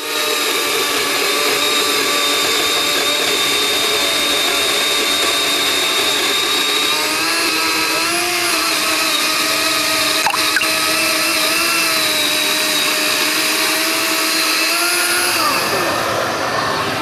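Greenworks cordless garden vacuum's electric motor running with a steady whine. Its pitch steps up slightly about halfway through, then falls away near the end as the motor slows.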